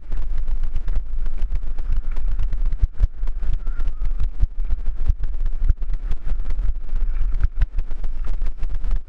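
Wind rumbling on a helmet-mounted GoPro Hero3 microphone as a mountain bike rolls fast downhill over loose gravel and stones, with constant small knocks and rattles from the tyres and bike over the rocks.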